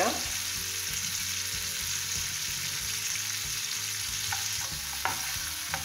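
Sliced onion, tomato, ginger and garlic sizzling steadily in hot oil in a nonstick frying pan as they are sautéed, with a few light clicks near the end.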